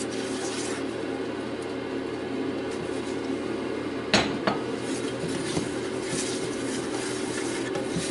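Silicone spatula scraping barley flour out of a glass bowl and stirring it into hot oil in a steel skillet, making a roux, over a steady low hum. Two sharp knocks about four seconds in, from the bowl or spatula striking the pan.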